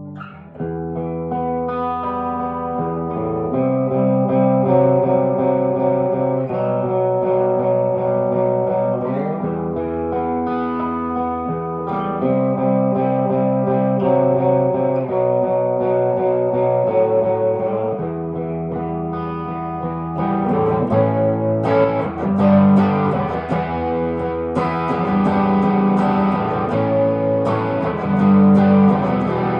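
1968 Gibson SG Junior electric guitar with its single P90 pickup, played through an amp: held chords ringing and changing every second or two, then, about two-thirds of the way through, shorter, sharper strummed chords.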